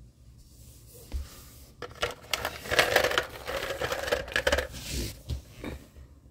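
Plastic balls rattling and clicking round a three-tier cat track tower as a kitten bats them: a single click about a second in, then a busy run of quick rattles that stops shortly before the end.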